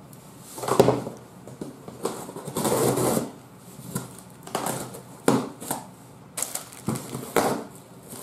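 Cardboard shipping box being opened with scissors: packing tape cut and ripped, and the cardboard flaps scraped and pulled open. It comes as a string of rasps, rips and knocks, with one longer rip about three seconds in.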